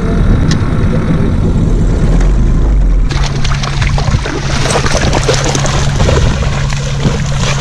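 Boat's outboard motor running under way with wind rush for about three seconds. Then it changes abruptly to two dogs splashing as they run through shallow water, with a steady low motor hum underneath.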